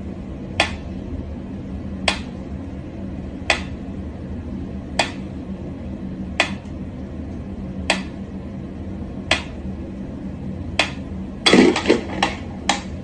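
Mechanical pyramid metronome ticking slowly, one sharp tick about every second and a half. Near the end a louder scuffling thump.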